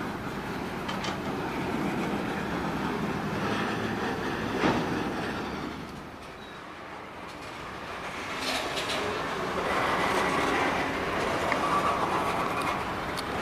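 Freight cars rolling past, steel wheels clicking over rail joints, with a faint wheel squeal near the end. The rolling dips quieter about six seconds in and then comes back up.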